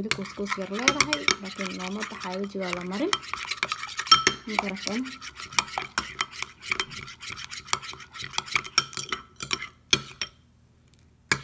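A metal spoon stirs and scrapes a thick paste in a glass bowl, with rapid clinks of the spoon against the glass. The stirring stops about ten seconds in.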